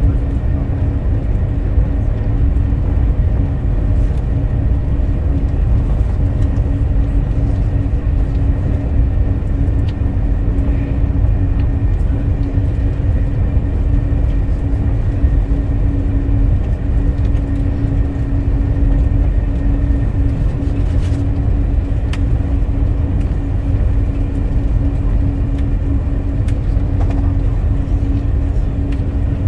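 Interior of a Eurostar TMST (Class 373) train carriage: a steady low rumble of the train running, with a constant hum over it.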